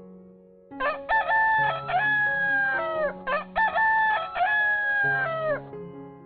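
An animal calling twice, each call a long pitched cry of about two seconds that rises at the start, holds and drops away at the end, over soft background piano music.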